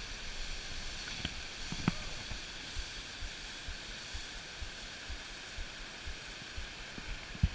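River rapids rushing steadily below the cliff, with a couple of faint clicks and scattered low bumps on the microphone.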